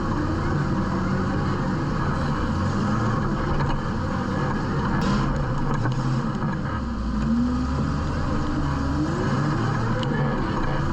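Off-road vehicle engine revving up and down under load while rock crawling, its pitch rising and falling several times, with a short sharp knock about five seconds in.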